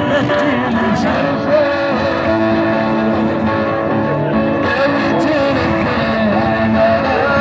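Live Amazigh band music: amplified guitars playing with a wavering sung melody over them, heard through the PA.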